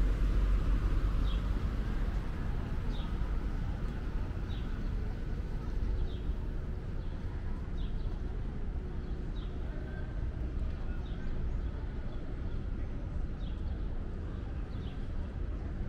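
Steady rumble of city street traffic, with a short, high chirp repeating about every second and a half.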